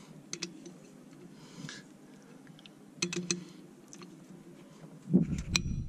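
18mm socket and breaker bar clicking lightly against a 6.7 Cummins cylinder head bolt as the tool is fitted, with a cluster of clicks about three seconds in. Near the end a low rumble sets in and one sharp metallic clink rings briefly.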